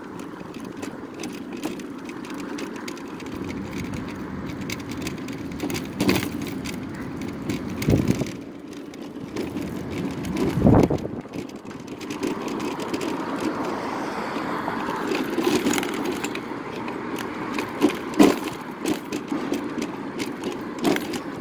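Electric mobility scooter riding over pavement: a steady hum from its motor and wheels, with several sudden knocks and jolts as it rolls over bumps and curb edges.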